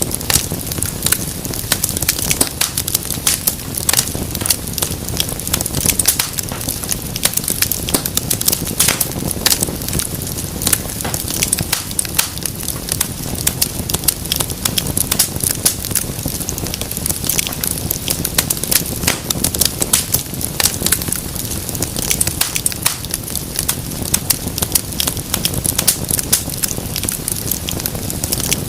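Wood fire burning in a fireplace, crackling and popping constantly over a low steady rumble of flame.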